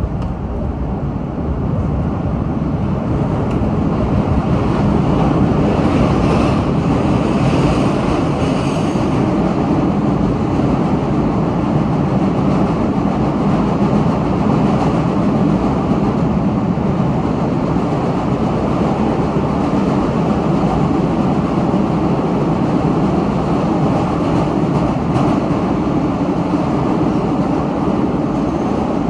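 MBTA Red Line subway train heard from inside the car, running through the tunnel: a steady, loud rumble of wheels on rails and motors. It grows louder over the first couple of seconds as the train leaves the platform and enters the tunnel, then holds steady.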